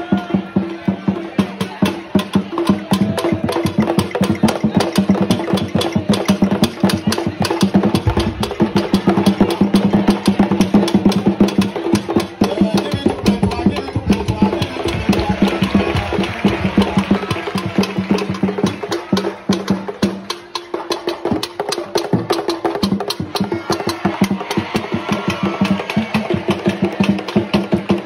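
Traditional Ghanaian dance drumming: fast, dense drum and wood-block-like percussion strokes over a steady low tone, with a brief drop about twenty seconds in.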